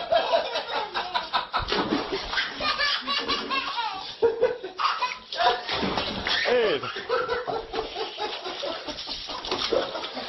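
Hearty human laughter, going on almost without a break.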